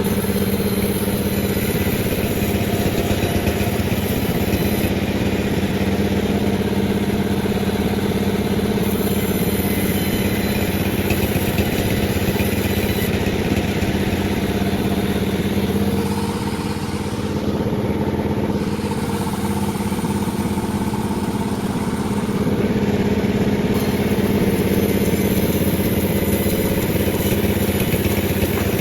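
Panda36 chainsaw running steadily at high speed while sawing a durian log. It eases slightly a little past the middle, then runs a little louder again.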